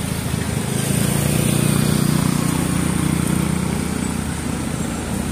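A small motorcycle engine running as it passes close by and pulls away. It is loudest about two seconds in, then fades.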